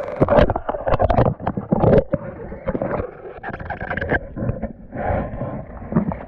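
Water splashing and sloshing in an ice-fishing hole as a hooked crappie is pulled up to the surface, mixed with many sharp, irregular knocks and bumps.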